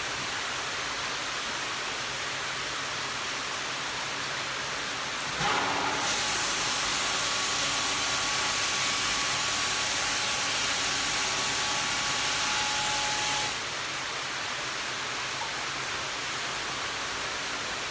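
Steady rushing hiss of water circulating through an indoor koi vat's filtration system. About five seconds in a louder, brighter hiss with a faint steady whine joins, runs for about eight seconds, and stops suddenly.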